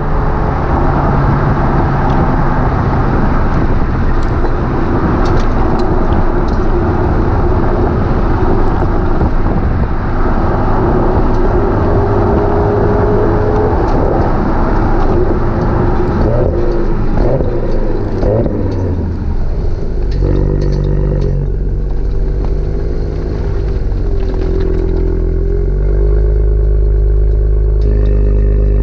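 Audi RS4 (B9) twin-turbo V6 through a Milltek non-resonated sports exhaust, heard right at the tailpipe: running along at speed under heavy wind and tyre noise, the engine note falling as the car slows, then settling to a steady idle about twenty seconds in.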